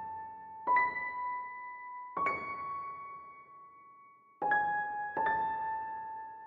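Background music: slow, sparse single keyboard notes in a piano-like tone, each struck and left to ring out, about four in all.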